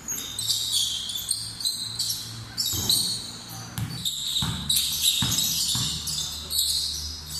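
A basketball bouncing on a hard outdoor court, a few separate thuds, with players' voices and a busy high-pitched noise throughout.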